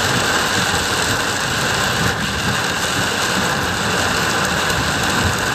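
Torrential rain beating on a car's roof and windscreen, heard from inside the cabin as a steady, dense hiss, with the car's engine and tyres running low underneath.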